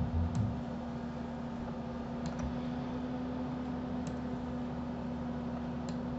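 A handful of separate sharp clicks from working a computer, spread a second or two apart, over a steady low electrical hum.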